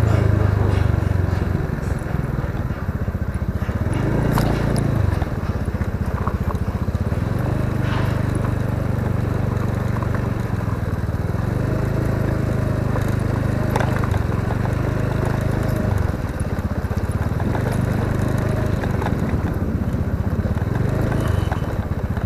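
Honda scooter engine running while riding at low speed, its note dropping and climbing again several times as the throttle is eased and reopened.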